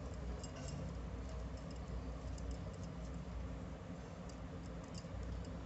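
Faint, irregular little clicks and ticks of a 3 mm crochet hook as it works stitches in wool yarn, over a steady low hum.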